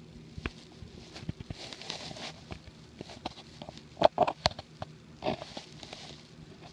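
An eleven-day-old kitten pawing and scrabbling on a white pad close to the microphone: scratchy rustling with scattered clicks. A few louder knocks come about four seconds in and again just after five seconds.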